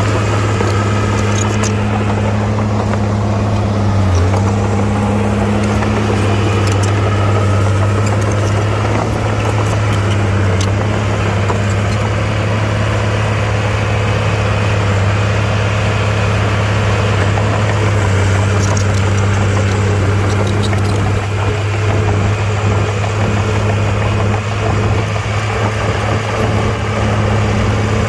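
Komatsu mini bulldozer's diesel engine running steadily with a constant low hum, with a few faint clicks on top.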